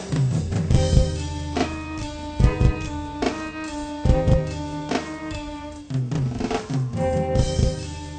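Studio recording of a drum kit playing, with sharp kick and snare hits over pitched bass and chord notes that change every second or so. The drums are miked entirely with Audix microphones.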